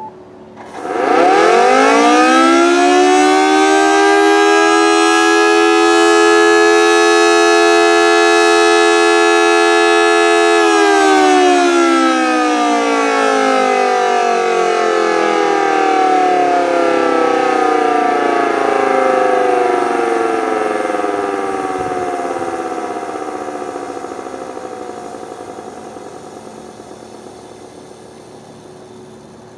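Federal Signal Model 2T two-tone electromechanical siren sounding its noon blast. It winds up quickly about a second in to a steady two-tone chord, holds it for about ten seconds, then winds down in a long, slowly falling glide that fades by the end.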